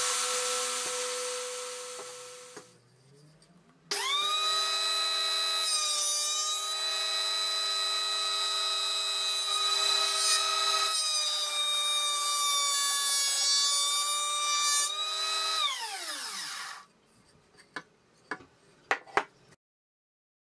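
Electric woodworking saws cutting oak boards. A saw motor runs and then fades out, another starts abruptly about four seconds in, whines steadily with the pitch of its upper tones shifting as it cuts, and winds down with a falling pitch. A few sharp knocks follow.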